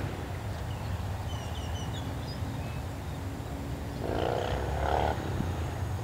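Outdoor marsh ambience: a steady low rumble, with a few faint high bird chirps about a second and a half in. About four seconds in comes a low, drawn-out call or voice lasting about a second, the loudest sound.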